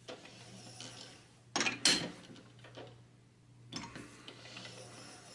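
Metal clanks from a four-jaw lathe chuck as its jaws are adjusted by hand to centre a block of steel. There are two sharp clanks close together about a second and a half in, and a lighter one near four seconds.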